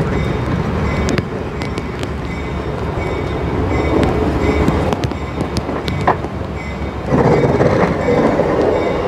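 Railroad passenger coach rolling past close by, its steel wheels rumbling on the rails with scattered sharp clicks, growing louder about seven seconds in as its wheels draw level.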